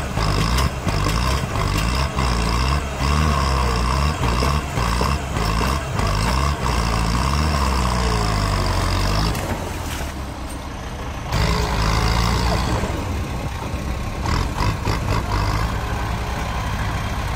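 Kubota tractor's diesel engine working under load as its front dozer blade pushes against a tree stump, its pitch rising and falling. About nine and a half seconds in it drops back quieter for a couple of seconds, then picks up again and runs steadily. Scattered short knocks throughout.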